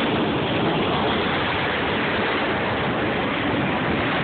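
CSX autorack freight cars rolling past close by: a steady rushing of steel wheels on the rails.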